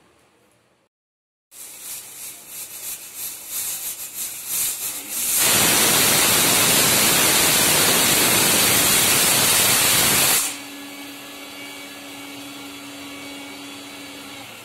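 Pressure cooker whistle blowing off steam: a sputtering hiss builds for a few seconds, then a loud full blast of steam for about five seconds, which cuts off sharply to a quieter hiss.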